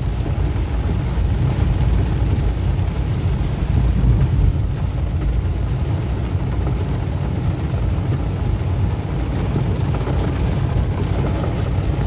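Inside a small Hyundai car driving in a downpour: heavy rain on the roof and windscreen over a steady low road rumble.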